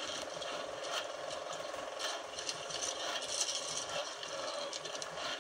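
Rapid, steady mechanical ticking, like a ratchet.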